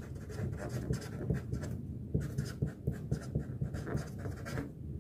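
Felt-tip permanent marker writing on a sheet of paper: a quick run of short scratchy pen strokes that stops just before the end.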